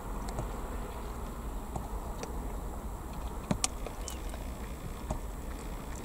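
Steady low outdoor rumble and hiss with scattered faint ticks, and two sharper clicks about three and a half seconds in.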